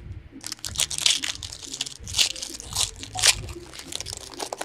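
A hockey card pack wrapper being torn open and crinkled, with a run of sharp crackles.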